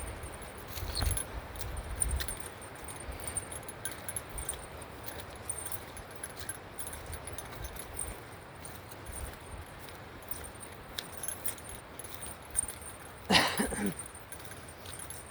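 Bear bell jingling with the walker's steps: small, repeated high metallic tinkles. There are low thumps in the first couple of seconds, and a brief voice-like sound about 13 seconds in.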